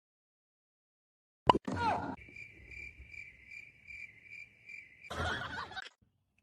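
Cricket-like chirping: one high tone repeating about two or three times a second for about three seconds. A sharp click, the loudest sound, comes about a second and a half in, just before it, and a short noisy burst follows the chirping.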